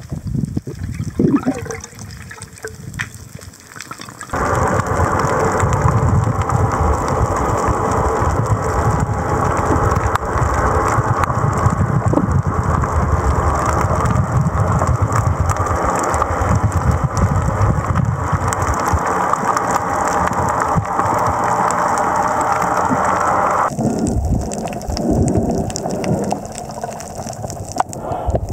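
Water noise picked up by a camera underwater. A dense, steady rushing starts abruptly about four seconds in and cuts off near the end, giving way to softer, lower sloshing.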